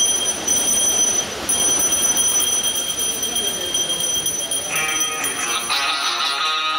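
A bell rung without a break: steady high ringing tones over a rattling hiss, with a short gap about one and a half seconds in. Near the end a melody comes in over it.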